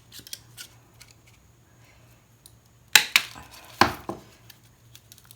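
Wire cutters snipping solid copper wire: three sharp metallic snaps close together about three seconds in, among small handling clicks.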